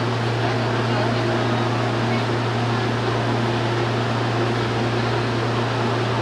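Steady low hum and even rushing noise of Hong Kong MTR subway ambience, with faint voices in the background.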